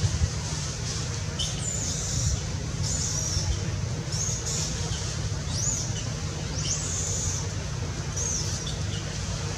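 About seven short high-pitched animal calls, each rising and falling, repeated every second or so over a steady low rumble.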